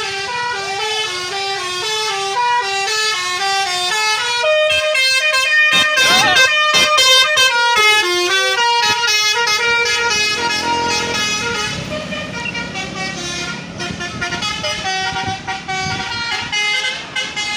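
Bus 'telolet' horn: a set of air-horn trumpets playing a melody of short stepping notes, loud and tuneful.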